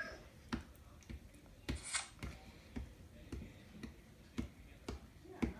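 Glue and slime activator being stirred together into slime, with short soft clicks about twice a second.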